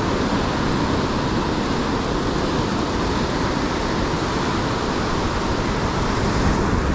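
Rough surf breaking and washing over rocks, a steady, even roar of waves with wind on the microphone.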